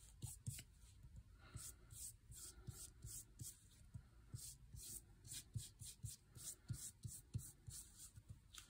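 Faint, quick repeated strokes of a paintbrush spreading matte medium over textured, embossed paper, about two or three strokes a second.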